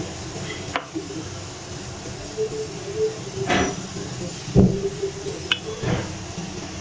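Wooden rolling pin working paratha dough on a hard worktop, with a handful of knocks and taps as the pin is rolled, set down and picked up; the loudest knock comes a little past the middle. A steady low hum runs underneath.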